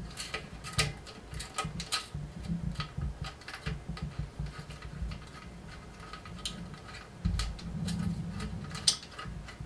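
Irregular small clicks and taps of hands working a motorcycle-style turn signal and its wiring into place on an e-bike, with a low rumble of handling noise, louder between about seven and nine seconds in.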